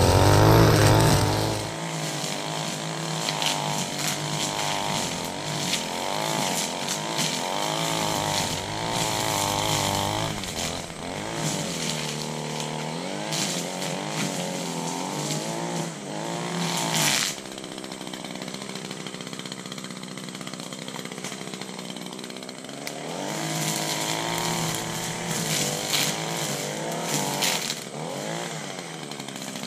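Gas string trimmer running and cutting grass and weeds, its engine revving up and down over and over as the throttle is worked. It is close and loud for the first two seconds, then farther off; about halfway through it drops to a lower, steadier run before revving again.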